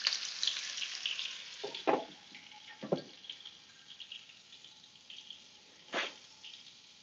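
Arctic char pieces sizzling and crackling in hot oil in a frying pan, the sizzle dying down as a glass lid is set on the pan with a couple of knocks about two and three seconds in. A single sharp knock comes about a second before the end.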